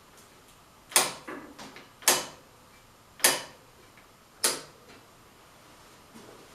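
Four sharp clicks about a second apart, each followed by a softer click or two, from a motorcycle clutch lever being pulled and released to test a newly adjusted clutch cable.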